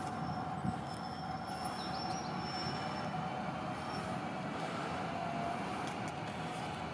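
EN57AL electric multiple unit, three sets coupled, running at the platform: a steady rumble and hum, with a thin high whine for a couple of seconds in the middle.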